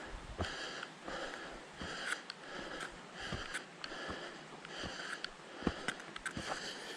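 A hiker breathing hard and rhythmically, a hissy breath about every three-quarters of a second, with footsteps scuffing and crunching on a dirt trail.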